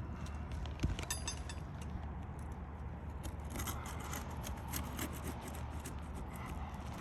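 Roof shingle seal strips being worked loose by hand: irregular scraping and rubbing with small crackles as the adhesive bond breaks, one sharp click a little under a second in, and a busier stretch around the middle.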